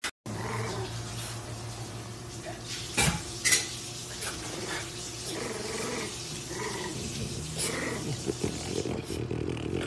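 A French bulldog and a French bulldog puppy making short, wavering vocal sounds while face to face, with two sharp knocks about three seconds in.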